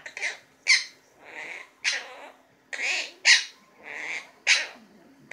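Pet parrot giving a run of about eight short, harsh calls with brief gaps between them, its attempt at counting out loud.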